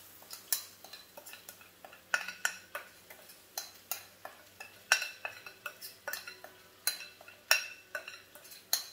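A utensil clinking and scraping against a glass mixing bowl as cornbread batter is scraped out into a hot, oiled pan: irregular sharp clinks, about one or two a second.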